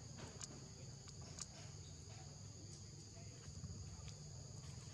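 Steady outdoor chorus of insects: a high, continuous two-pitched trill, over a low rumble, with a couple of faint clicks.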